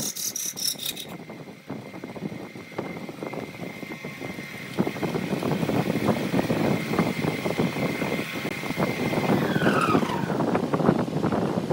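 Wood lathe turning a redwood vase: a gouge cuts briefly at the start, then the lathe runs with a steady high whine that falls in pitch about ten seconds in as it spins down. Under it, a louder, even rushing noise sets in about five seconds in.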